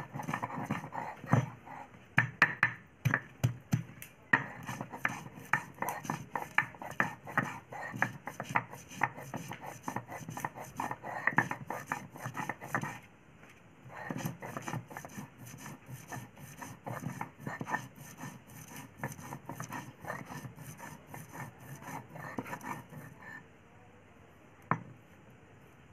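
Stone roller of a sil-batta grinding stone worked back and forth on the flat stone slab, grinding wet masala paste: quick, regular knocks and scrapes of stone on stone, turning to softer rubbing about halfway through and stopping near the end.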